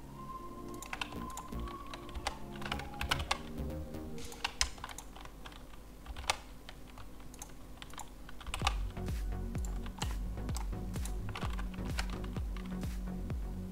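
Computer keyboard keystrokes clicking irregularly as hotkeys are pressed, over soft background music whose low notes grow louder about eight seconds in.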